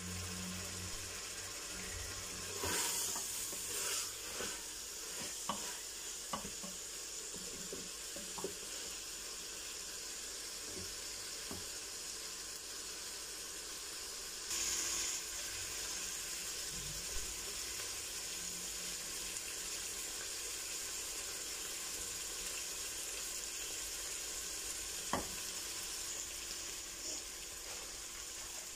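Minced meat and potatoes sizzling steadily as they are fried in an open pressure cooker at the bhunai (dry-frying) stage, with a wooden spoon scraping and knocking against the pot now and then, mostly in the first half.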